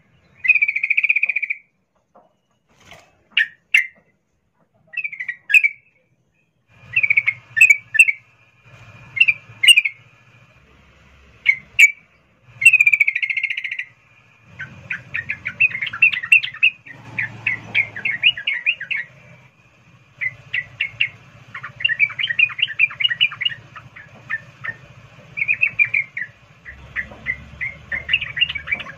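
Female yellow-vented bulbul (trucukan) calling in breeding condition: short bubbly phrases at first, then from about halfway long, fast rolling runs of chattering notes, a call meant to draw a male.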